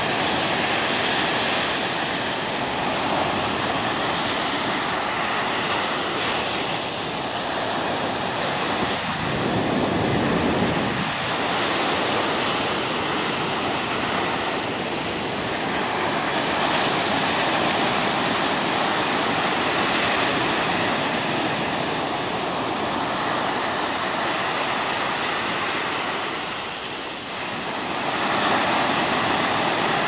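Stormy sea surf: waves breaking and washing up the beach in a continuous rush that swells and eases, with a deeper surge about ten seconds in and a brief lull near the end.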